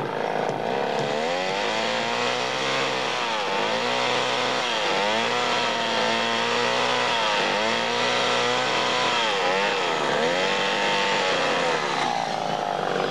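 Two-stroke chainsaw running, its engine note dropping and climbing again about six times in a row.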